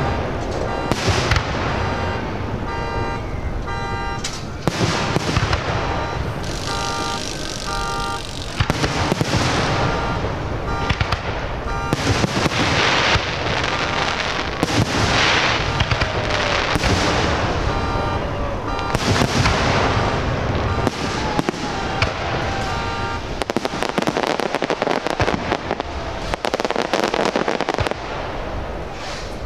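Aerial fireworks going off in a continuous barrage, many bangs in quick succession. A pulsed tone repeats in a few short stretches.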